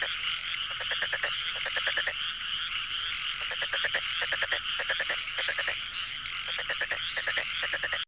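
Chorus of frogs calling over one another: rapid pulsed croaks mixed with short, high chirping calls that repeat about once a second.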